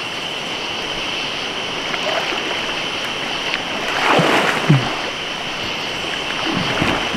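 River water rushing steadily, with a person splashing through it about four seconds in.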